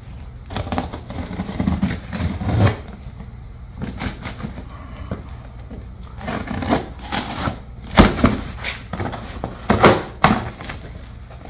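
Cardboard box being cut open by hand: a blade slicing through packing tape and cardboard, with flaps rustling and scraping and a few sharp snaps, the sharpest about eight seconds in.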